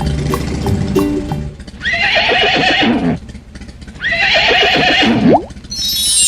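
A horse whinnies twice, each call about a second long and falling in pitch, after the end of a short bit of children's music. A shimmering chime starts near the end.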